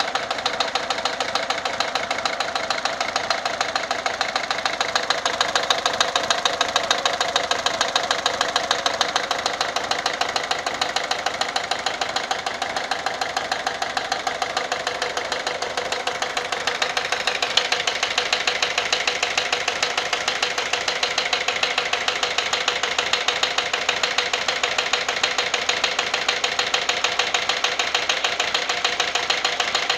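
Peugeot 407's 1.6 HDi four-cylinder turbodiesel idling with a fast, even ticking knock: the abnormal engine noise being diagnosed. A little past halfway a higher-pitched edge joins the running sound.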